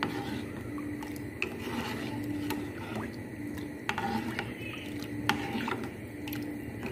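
Metal spoon stirring and scraping a cornstarch-thickened pineapple filling in a nonstick saucepan as it cooks, with scattered sharp clicks of the spoon against the pan. A faint low hum comes and goes underneath.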